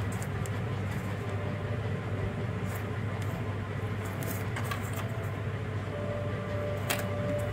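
A steady low hum, with faint crinkles and small clicks as a small paper pouch of ear tips is handled and put down and a USB charging cable is picked up.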